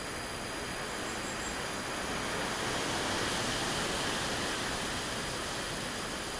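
Wind blowing through the forest: an even rushing noise that swells about halfway through and eases off again.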